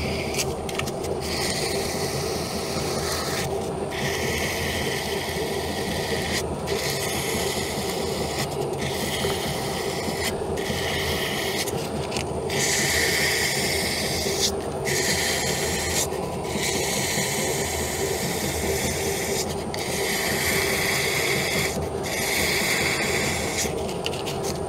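An Atlas 10-inch metal lathe runs with a steady hum while abrasive cloth is held against a spinning carriage bolt, finishing the turned bolt. The sanding makes a scratchy hiss that comes and goes in bouts, with short breaks every second or few seconds as the cloth is lifted and reapplied.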